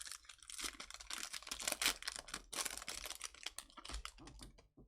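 Crisp, rapid clicking and crinkling from trading cards and a foil pack being handled in quick succession. It stops abruptly near the end.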